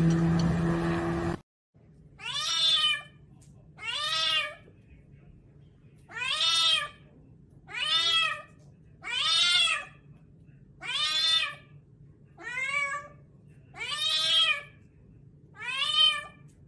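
For a little over a second a light helicopter's engine drones steadily and then cuts off. Then a cat meows nine times, about one call every second and a half, each call rising and falling in pitch.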